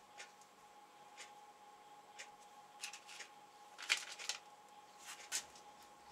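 Plastic blister pack and tubes of Araldite epoxy crinkling and rustling as they are handled, loudest about four seconds in. Under it, a regular tick about once a second and a faint steady tone.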